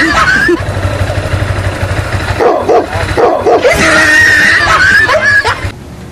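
Dog barks followed by a long, high, wavering whine, the same sequence heard twice. The sound cuts off suddenly near the end.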